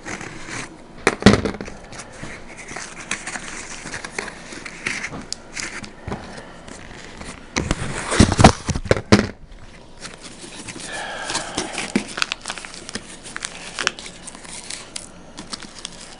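A cardboard parcel being cut open and unpacked: a knife slitting the packing tape, the flaps pulled open and the cardboard and packing rustling and crinkling, in irregular scrapes and rustles with loud bursts about a second in and again around eight to nine seconds in.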